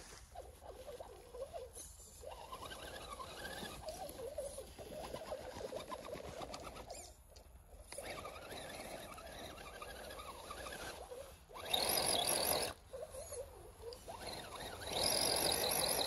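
Electric motor and gears of a scale RC crawler whining as it climbs over dirt and roots, the whine rising and falling in pitch with the throttle. It surges louder twice in the second half.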